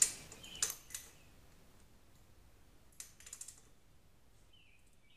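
Socket ratchet clicking as it loosens the 12 mm bolts at the bottom of a motorcycle's front fork: a few sharp clicks in the first second, then a quick rattle of clicks about three seconds in.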